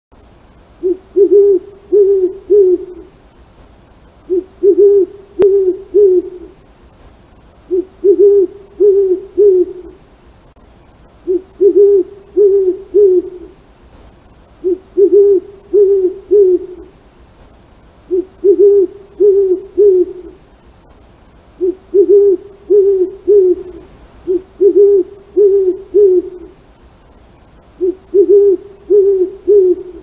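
An owl hooting in runs of three or four short, low hoots, each run repeated about every three and a half seconds.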